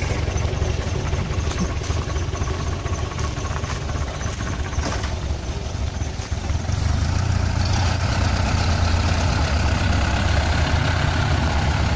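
Mitsubishi PS100 light truck's diesel engine running with a steady low rumble, growing louder about seven seconds in.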